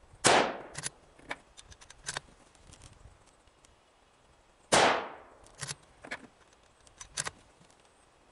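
Two rifle shots about four and a half seconds apart from a Savage 12 LRP in .260 Remington, each loud report trailing off in echo. Each shot is followed by a few sharp clicks.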